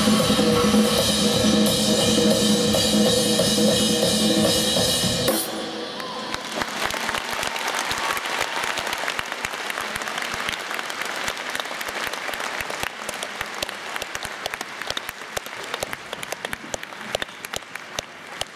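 Music with a drum kit that stops abruptly about five seconds in, followed by an audience applauding, the clapping easing off slightly toward the end.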